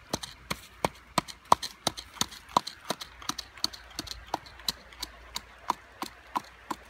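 Bamboo pestle pounding salt in a bamboo-tube mortar: sharp, hollow knocks, evenly spaced at about three a second.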